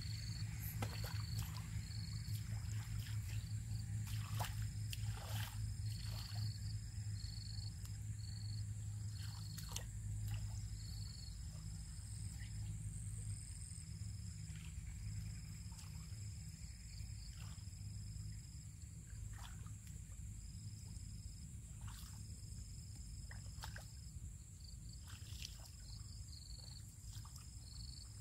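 Feet and hands squelching and splashing in shallow mud and water, in scattered short strokes, over insects chirping in short repeated calls and a steady low hum.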